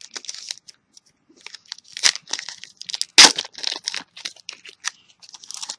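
Plastic trading-card booster pack wrapper crinkling and being torn open by hand in irregular crackles. One sharp, loud rip comes about three seconds in. The pack is tightly sealed and hard to get into.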